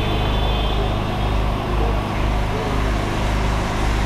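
Steady low rumble of urban street background noise, such as traffic.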